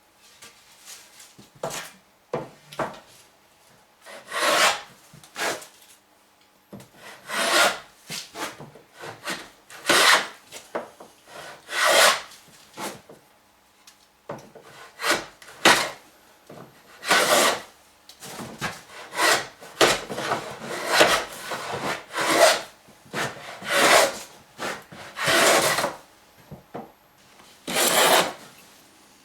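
Wooden moulding plane cutting a bead profile along the edge of a construction-lumber board, in repeated strokes about every one to two seconds, each a short rasping shave of wood, with a brief pause partway through.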